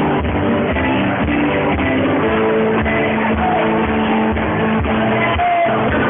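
Live rock and roll band playing loud and steady: drum kit keeping the beat under guitar, with a few bent notes. Recorded on a camera phone, so the sound is dull and crowded.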